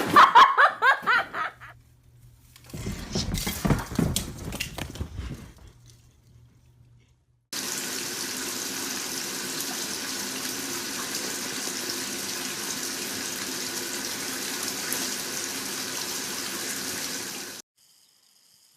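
Water running steadily, like a tap, starting suddenly and cutting off abruptly after about ten seconds.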